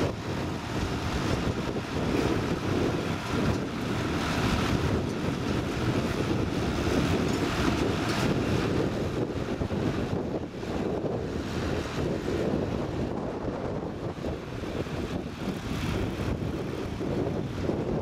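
Ford 8730 tractor's six-cylinder turbo diesel engine working steadily under load as it pulls a reversible plough through the ground, with wind buffeting the microphone.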